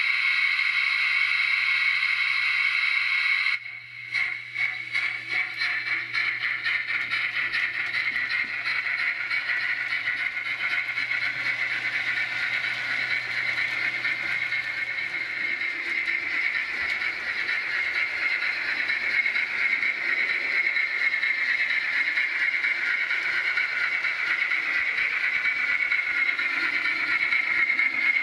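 DCC sound-fitted model steam locomotive playing its steam sound through the on-board speaker. A steady hiss cuts off suddenly about three and a half seconds in, then gives way to a rapid run of chuffs as the model runs along the track.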